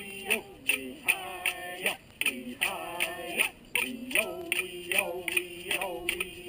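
A singer chanting a traditional Chumash song in a wavering voice over a steady beat of sharp clicks, about three a second.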